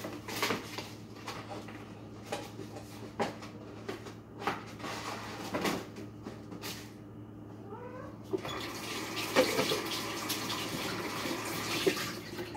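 Scattered knocks and clatter of things being handled in a kitchen, then a brief rising squeak and a kitchen tap running into the sink for about four seconds near the end.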